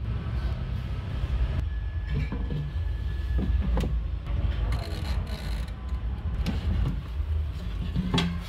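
Steady low rumble with scattered clicks and knocks from an air fryer being handled: shrimp laid into its metal basket and its control knobs turned.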